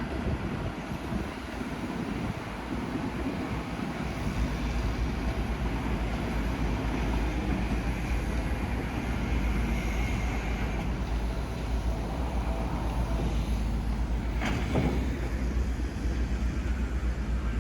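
Seibu Shinjuku Line electric train running past, a steady rumble and rush of noise that builds over the first few seconds. A single short knock comes near the end.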